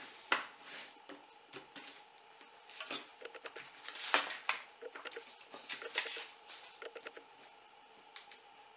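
Handling noise from plastic metal detector parts: scattered light clicks and rubs as the plastic coil bolt is fitted and tightened onto the lower shaft, with a few sharper clicks about a third of a second in, near the middle and a little later.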